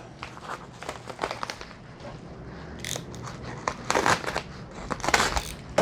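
A mailed package being opened by hand: irregular crinkling and rustling of the packaging, with scattered clicks and small tearing sounds.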